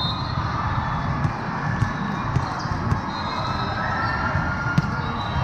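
Indoor court game sounds: sharp ball impacts about five times, sneakers squeaking on the floor, and crowd chatter in the gym.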